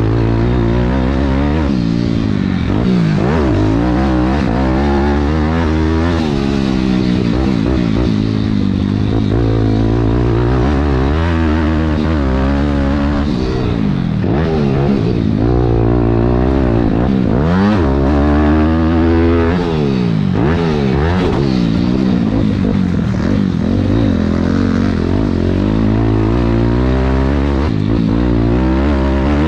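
Thumpstar 190 pit bike's single-cylinder four-stroke engine being ridden hard, revving up and dropping off again and again as the throttle opens and closes and the gears change, with clatter from the bike over the rough ground.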